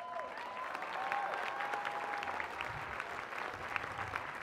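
Crowd applauding, the clapping swelling in at the start and then holding steady, with a faint held cheer over it in the first couple of seconds.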